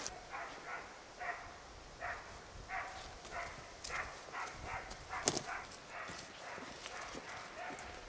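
Young springer spaniel barking faintly in the distance, a steady run of about two barks a second, the kind of bark a boar dog gives when it has found wild boar and is holding them. There is one sharp snap just after five seconds in.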